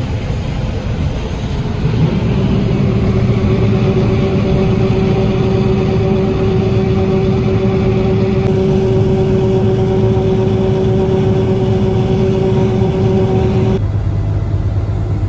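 Steady engine and machinery drone of a combine harvesting corn, heard from inside the cab, with a steady whine over it. The sound changes abruptly about eight and a half seconds in and again near the end, as other farm machinery takes over.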